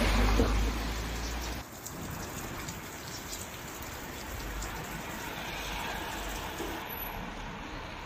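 Steady heavy rain falling and pattering on surfaces. For the first second and a half a louder low rumble runs under it, then cuts off abruptly.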